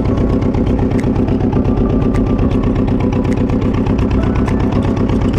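A fishing boat's inboard engine running steadily with a fast, even beat.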